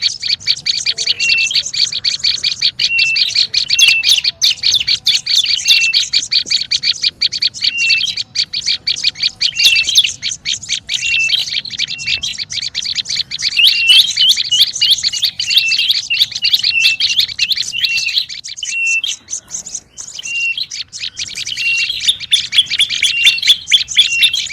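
Prenjak lumut bird chattering fast and without pause, a dense run of sharp chirps with a short repeated note about once a second, the agitated 'ribut' call used as a lure for the species. It thins out briefly about three quarters of the way through, then picks up again.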